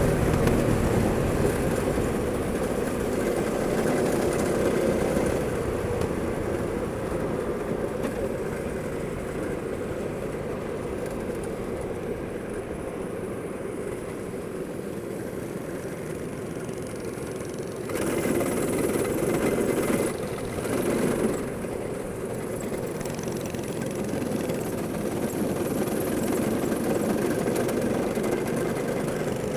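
Go-kart engines running steadily, with a louder stretch about eighteen seconds in that lasts a few seconds before settling back.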